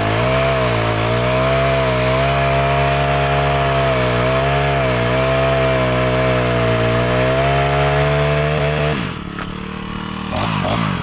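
49cc four-stroke Ferrex chainsaw running at high revs and cutting wood, its engine speed dipping again and again under load. About nine seconds in it drops back toward idle, then is revved in a few quick throttle blips near the end.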